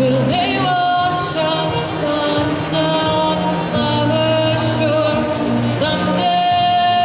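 A woman singing live into a microphone over a musical accompaniment with a low bass line underneath; she sings held notes with vibrato, and a long sustained note begins about six seconds in.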